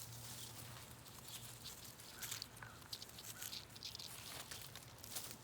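Hands digging through loose potting soil in a pot to pull out potatoes: faint, irregular rustling and scratching with small scrapes.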